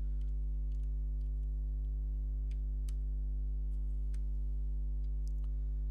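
Steady low electrical mains hum, with evenly spaced overtones, under a few faint scattered clicks.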